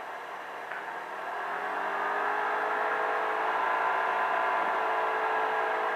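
Polaris RZR UTV engine heard from inside the car, picking up speed about a second and a half in, its pitch and loudness rising, then running steadily at speed.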